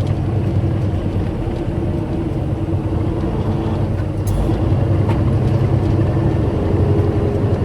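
Truck's diesel engine running under way, heard from inside the cab as a steady drone that grows a little louder about halfway through.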